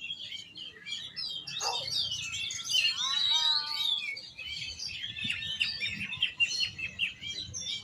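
Oriental magpie-robin (kacer) singing a dense, rapid run of chirps and whistles, with a few lower sliding notes about three seconds in.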